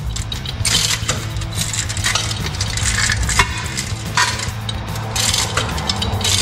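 Irregular metal clinks and scrapes of tools and parts being worked on the engine and transmission, roughly one every half second to a second, over a steady low hum.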